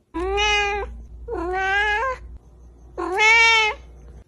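A cat meowing three times, each meow under a second long and rising in pitch at its end.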